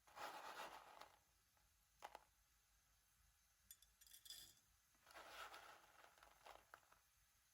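Quiet kitchen handling sounds: short rustling, scraping bursts, three in all, with a sharp click about two seconds in.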